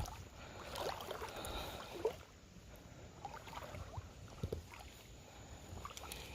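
Faint sloshing of river water around a person wading, with a few small clicks and knocks.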